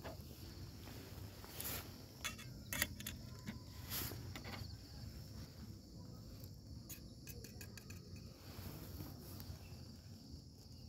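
Metal tongs clicking against a small metal camping pot as food is lifted out, a scatter of sharp clicks in the first half and again in the middle, over a steady background of crickets chirping.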